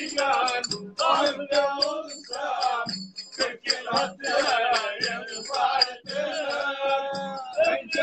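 A man singing in a wavering, ornamented voice, accompanied by a bağlama (long-necked Turkish lute), with sharp clicks keeping a steady beat.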